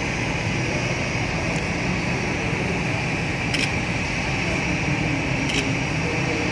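Twin jet engines of an Airbus A320-family airliner running at low taxi thrust as it taxis in: a steady whine and rush that holds level throughout.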